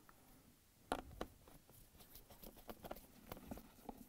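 Faint scattered clicks and taps as a Phillips screw is set in a plastic refrigerator hinge cover and driven in with a hand screwdriver.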